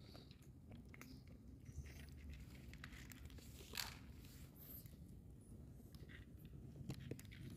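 Cats chewing dry kibble: faint, scattered small crunches, with one louder sharp click about halfway through.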